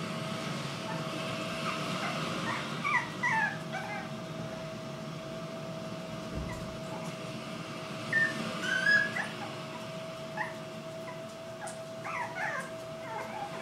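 Black-and-tan Jack Russell Terrier puppies whimpering and yipping in short, high calls that come in three bursts, over a steady faint hum.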